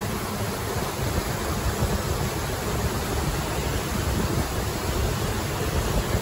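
Steady rushing wind-and-sea noise on a phone's microphone, with a low, gusty rumble and no distinct engine note.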